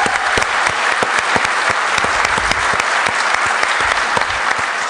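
Audience applauding steadily, a dense sound of many hands clapping, with single nearer claps standing out at a steady rhythm.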